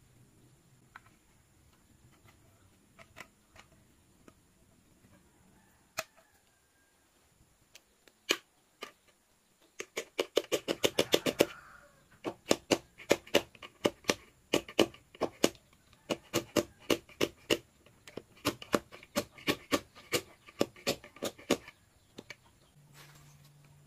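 Rapid runs of sharp clicks, several a second, in bursts from about ten seconds in, after a few scattered single clicks.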